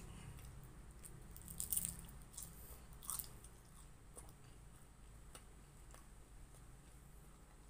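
Person biting and chewing crispy fried lumpia (spring roll): a few crunches about two and three seconds in, then softer chewing.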